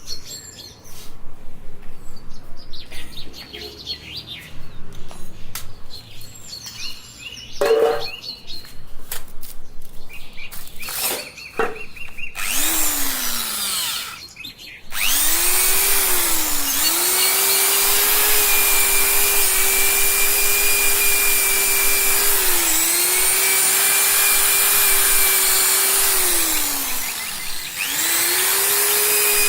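Handheld electric power tool: a burst that winds down, then a steady high-speed motor whine whose pitch sags and recovers a few times as it is pressed into the work. Before that, a run of short, rapid irregular sounds.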